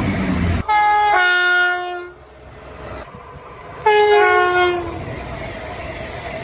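A train's multi-tone air horn sounds two blasts, about three seconds apart. Each blast is a chord that drops in pitch partway through. Between and after the blasts comes the rumble of the passing train.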